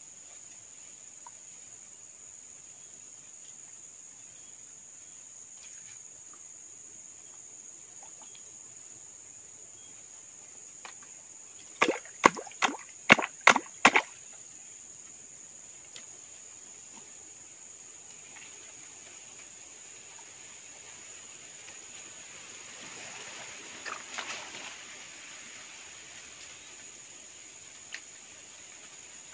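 A steady high-pitched drone of crickets or other insects. About twelve seconds in comes a quick run of about seven sharp slaps of a hand on the shallow water of the fishing hole, followed by softer rustling or splashing a little after twenty seconds.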